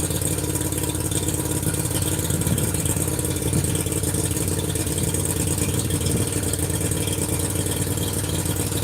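A motor or engine running steadily at idle, an even low drone.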